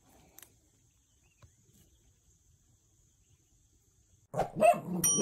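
Faint, steady high-pitched insect chirring over quiet pasture ambience. About four seconds in, a sudden loud burst of sound effect begins and breaks into a ringing, bell-like ding, the start of the outro jingle.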